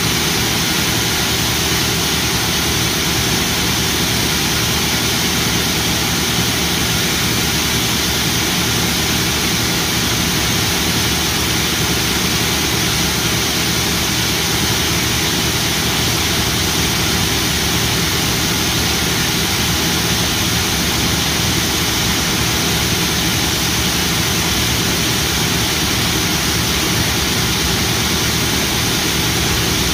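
John Deere T670i combine harvester running steadily under load: a loud, even roar over a low engine hum, with no change in speed.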